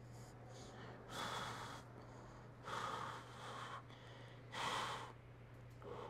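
A man breathing hard under the strain of a set on a leg press machine: three heavy breaths about a second and a half apart, then a shorter one near the end, over a steady low hum.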